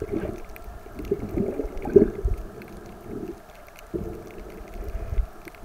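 Underwater gurgling and low rumbling heard through the camera beneath the water, coming in irregular swells of bubbly, wavering sound with a quieter gap about three and a half seconds in.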